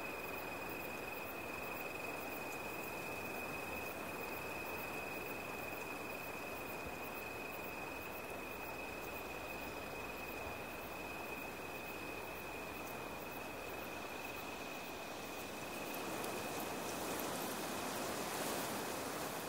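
Night ambience: an unbroken, steady, high insect trill like a cricket's over a soft hiss. Near the end a louder rushing hiss swells up.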